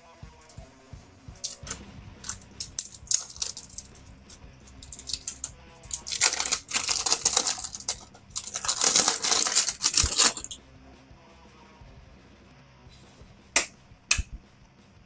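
Clear plastic shrink sleeve being peeled and torn off an e-liquid bottle. It starts as scattered crinkles, then comes two longer loud rustling stretches of about two seconds each. Near the end there are a few sharp clicks as the cap's tamper seal is twisted and snapped.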